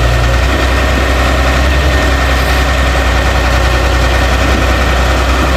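Caterpillar E120 hydraulic excavator's diesel engine running steadily, a low, even drone, while the machine digs.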